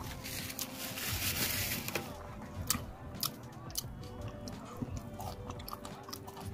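Close-miked eating: a crunchy bite about half a second in, then chewing with sharp wet mouth clicks, over a faint restaurant-ambiance and music bed.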